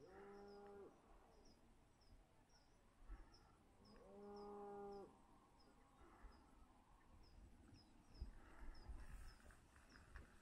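Faint, distant cattle mooing: two steady calls about a second long, one at the start and one about four seconds in. A high chirping repeats a few times a second throughout.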